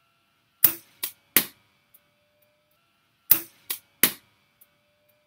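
Sharp knocks of cricket bat and ball in two sets of three, a few seconds apart: each set a loud knock, a softer one, then another loud one.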